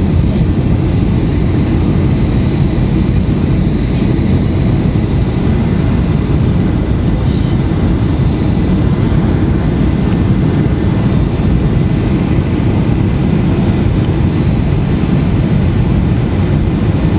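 Steady, loud low rumble of an aircraft in flight, with a brief faint hiss about seven seconds in.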